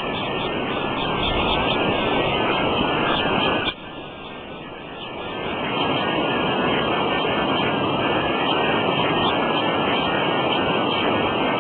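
Creek water rushing steadily. The rush drops off sharply a little under four seconds in and swells back up over the next two seconds.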